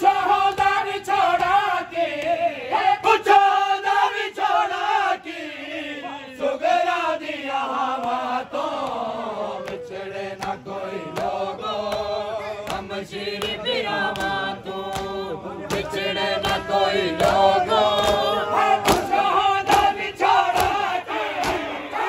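A crowd of men chanting a noha lament in chorus, with rhythmic matam: the regular slaps of hands striking bare and clothed chests keep the beat under the singing.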